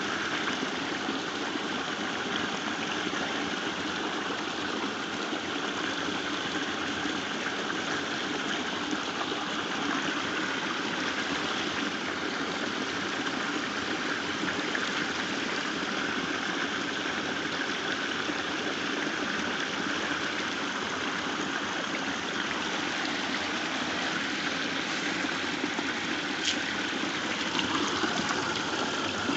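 Water of a small waterfall falling and running steadily over rocks, with one short click near the end.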